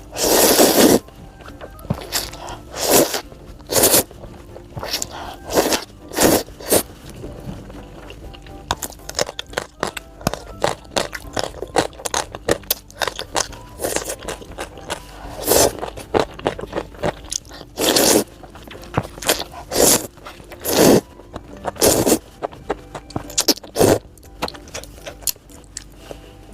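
Close-up eating sounds: loud crunchy bites and chewing of crispy food, a sharp crunch every second or two, with the loudest bite right at the start. Background music plays underneath.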